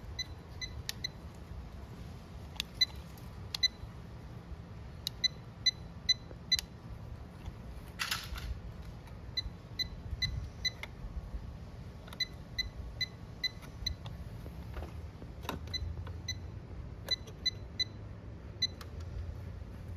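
Automotive circuit tester's buzzer giving short high beeps, sometimes singly and sometimes in quick runs of several, at irregular moments throughout. There is a brief rustle about 8 seconds in, over a low steady rumble.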